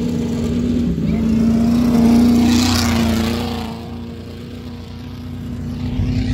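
An old-car race car's engine running hard as the car passes close by on a dirt track. It swells to a peak about two to three seconds in, then fades away, over a steady engine drone.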